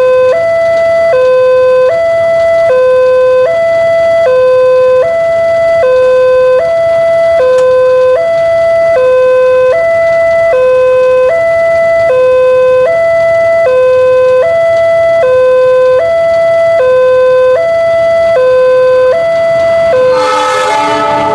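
Railway level-crossing alarm from a loudspeaker on the signal post: an electronic two-tone warning alternating high and low, about one cycle a second, sounding for an oncoming train. About a second before the end, the noise of the approaching diesel train rises under it.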